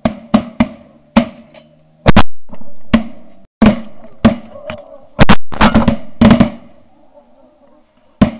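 Shotgun shots in rapid succession, about a dozen in eight seconds, some fired in close pairs, each with a short echo.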